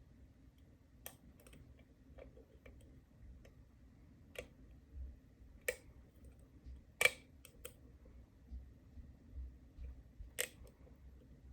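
Small, irregular metallic clicks of a steel lock pick working the pins of a brass 5-pin Ruko oval cylinder under tension, about eight in all. The sharpest click comes about seven seconds in.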